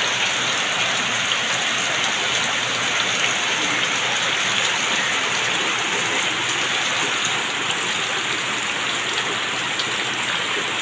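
Heavy rain falling in a steady downpour, an even hiss of drops splashing on wet ground and in water-filled basins.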